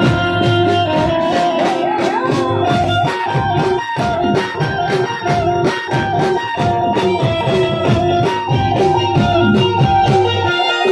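Live Gujarati folk band music: drums keep a steady rhythm under a melody on a keyed Indian banjo.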